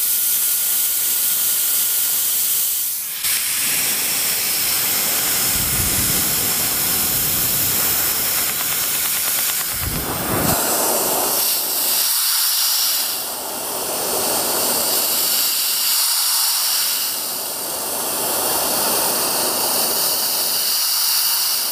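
Brushless turbo fan from a bladeless hair dryer running at high speed, with the microphone at its intake: a loud, steady rush of air, the motor itself making almost no sound. A couple of brief low rumbles of air buffeting the microphone come midway.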